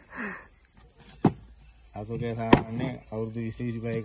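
Two chops of a large knife through a small fish onto a wooden chopping board, about a second and a half apart, over a steady high insect drone.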